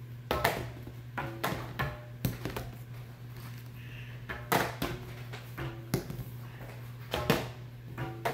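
Irregular sharp knocks and clatters of plastic Pigs on Trampoline game pieces on a tabletop, about one or two a second, over a low steady hum.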